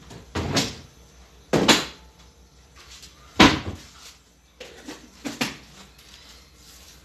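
Several short knocks and clatters of household things being handled in a kitchen, roughly a second apart. The loudest is a sharp knock a little over three seconds in.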